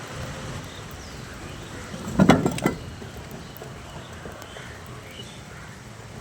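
Light rain falling, a steady soft hiss, broken about two seconds in by a brief cluster of loud knocks.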